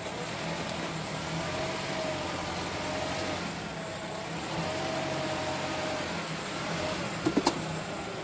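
A 2018 Nissan Rogue's engine running at low speed with a wavering whine. Three quick knocks come close together near the end.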